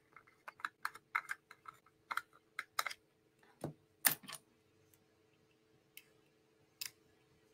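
Long acrylic nails clicking and tapping on a plastic gel palette pot and its lid as it is handled and opened: a run of quick light clicks that thins out after about three seconds, with one louder click about four seconds in. A faint steady hum lies under it.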